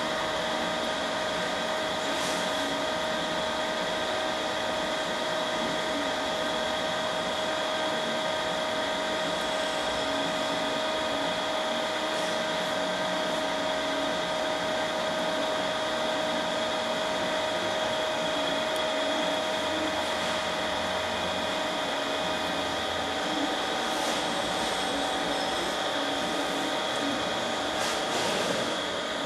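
Steady hum of running electric machinery with several high, unchanging tones, with a few faint clicks.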